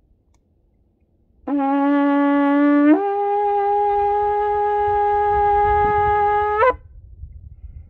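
A long, twisted shofar blown in one blast. It opens on a low note for about a second and a half, then jumps up to a higher note held for about four seconds, and cuts off with a brief upward flick.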